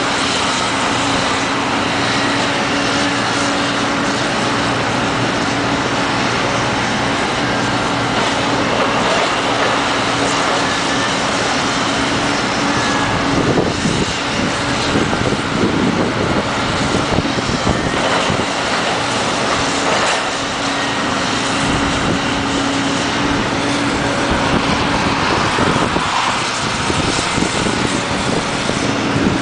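Tracked excavator's diesel engine running steadily with a constant drone while it tears down a brick building, with crashes and clatter of falling masonry and debris, heaviest about 13 to 18 seconds in.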